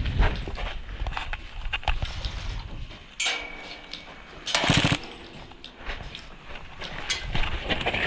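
Next-generation electric MP5 airsoft gun firing full-auto bursts, its motor and gearbox buzzing under scattered clicks. The loudest burst comes about four and a half seconds in.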